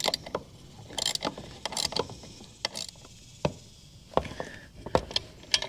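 Ratchet wrench clicking in short runs as a 10 mm nut is snugged down on a bracket bolt, followed by scattered single metallic clicks.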